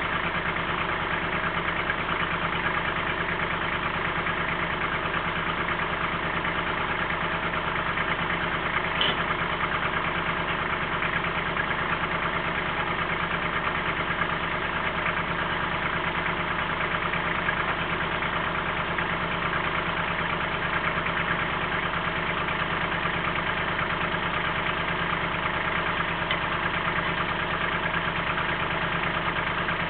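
Kubota L3800 compact tractor's three-cylinder diesel engine idling steadily, with one short click about nine seconds in.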